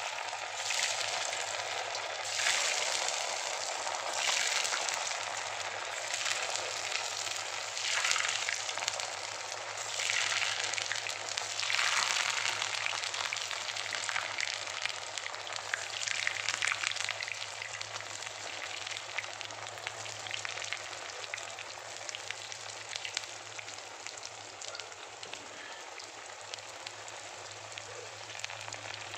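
Food deep-frying in hot oil in an iron kadai: a dense, crackling sizzle of bubbling oil. It surges louder several times in the first dozen seconds, then settles to a steady sizzle that eases off slightly toward the end.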